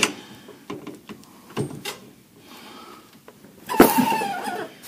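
Sharp clicks and knocks of metal parts and hand tools being worked, then a louder scraping squeal that falls in pitch, a little under a second long, near the end.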